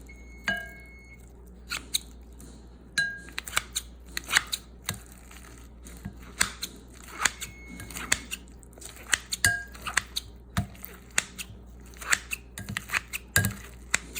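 Scissor-style salad choppers snipping repeatedly through cooked pork chops to shred them: irregular sharp snaps, several a second at times, with a few short ringing clinks from the blades against the bowl.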